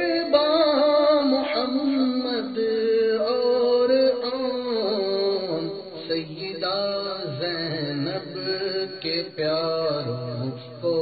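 A man singing a devotional Urdu salaam (manqabat), drawing out a long, wavering melismatic phrase on held notes with no clear words.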